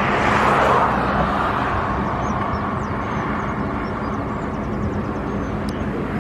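Highway traffic: a passing vehicle's road noise swells about half a second in and fades slowly, over a steady low engine hum.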